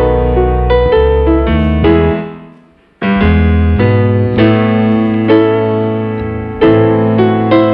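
Background piano music playing chords. It fades away about two seconds in and starts again abruptly a second later.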